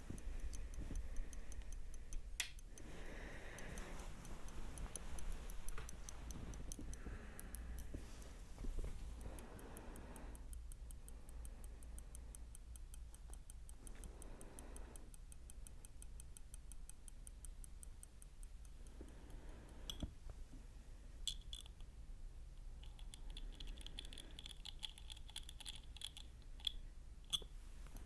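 ASMR trigger sounds close to the microphone: soft scratching and rubbing strokes, each a second or two long, over a fine, fast clicking, with a few sharper taps near the end.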